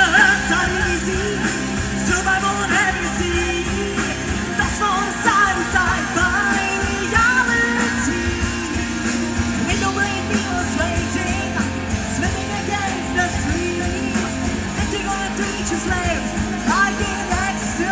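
A rock band playing: electric guitars and drums with a singing voice, steady and loud throughout.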